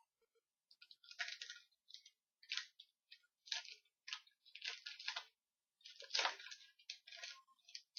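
Trading cards being handled, sliding and flicking against each other, as an irregular string of short scratchy rustles.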